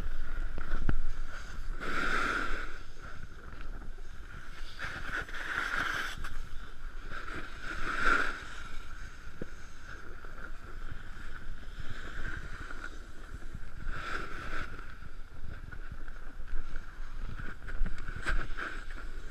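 Snowboard scraping and sliding over packed snow, a rushing hiss that swells with each turn every few seconds.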